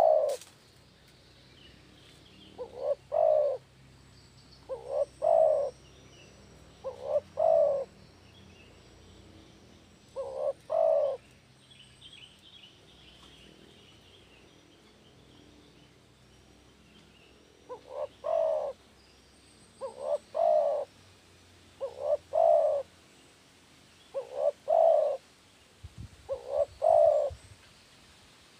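Spotted dove cooing: repeated phrases of two or three short notes, the last one the loudest, about one phrase every two seconds, with a pause of several seconds partway through. Faint chirps of other small birds behind.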